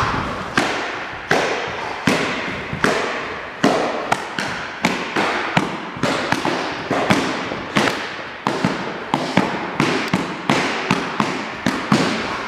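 Rapid middle-level roundhouse kicks (mawashi-geri chudan) smacking into a handheld kick shield, about two a second, each hit echoing in the hall.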